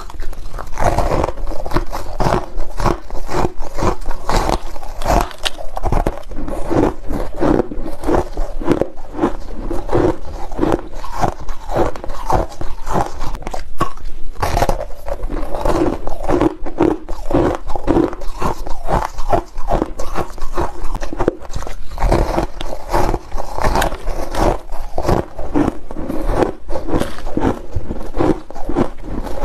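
Person biting and chewing a block of packed purple-and-blue crushed ice: a fast, continuous run of crisp crunches.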